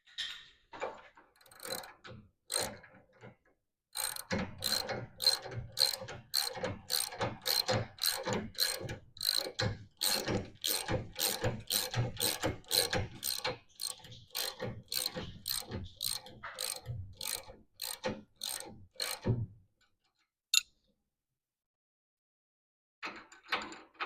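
Ratcheting wrench on a 1/2-inch nut of a friction shock, clicking in steady strokes about twice a second for some fifteen seconds as the nut is run down, after a few loose clicks to start; it stops and a brief clatter of tools follows near the end.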